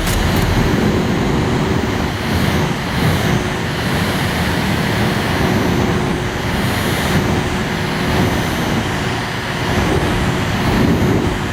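Steady rushing airflow of a small fan running, with a faint steady hum underneath.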